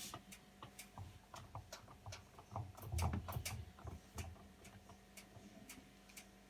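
Hotpoint washing machine clicking and ticking irregularly, about three clicks a second, with a few heavier low knocks near the middle, over a faint steady hum.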